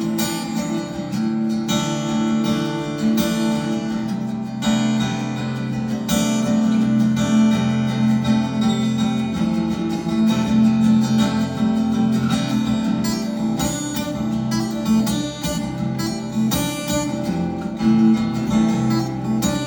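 Acoustic guitar strumming chords steadily in an instrumental passage of a song.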